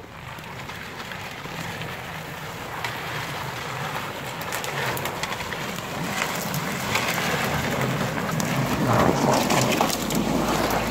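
Toyota Carib wagon driving through snow-covered brush, its engine running while shrub branches scrape and crackle against the body. The sound grows louder as the car comes close and passes.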